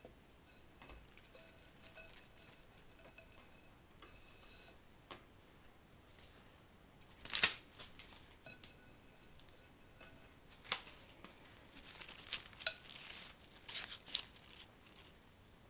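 Flower stems, leaves and a ribbed glass vase being handled during flower arranging: scattered light clicks and taps, the sharpest about seven seconds in and a cluster near the end, with a short rustle of leaves and plastic wrapping a little before that.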